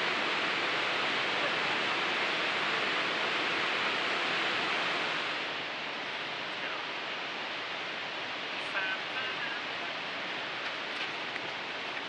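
Steady rushing roar of the Middle Falls at Wallace Falls, a 265-foot waterfall, pouring down its drop. The rush drops a little in level about halfway through.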